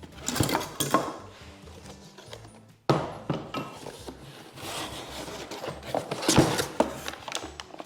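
Parts of a bike repair stand and their packaging being handled: scattered knocks and clinks of metal tubes over rustling, the loudest knock about six seconds in.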